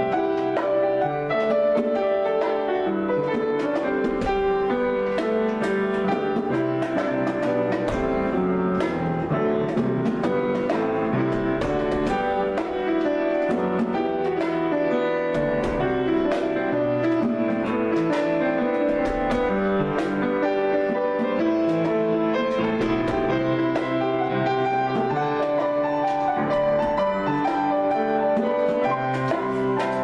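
Grand piano playing an improvised piece, with a conga drum struck by hand alongside it.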